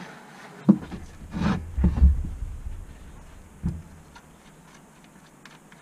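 Handling noise from a 29er mountain bike wheel and its Schwalbe Magic Mary tyre being pressed and moved on a wooden bench: a knock, a cluster of heavier dull thumps, then one more thump.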